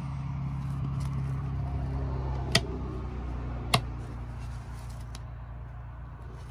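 Two sharp clicks about a second apart as rocker switches on a camper's backlit 12-volt switch panel are flipped to turn off the exterior lights, over a steady low hum.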